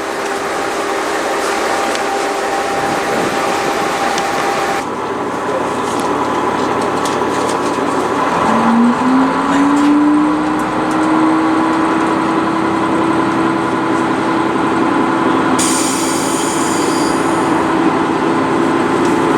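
Diesel railcar running, with a steady rumble. About eight seconds in, an engine tone rises in pitch and then holds steady as the railcar powers up.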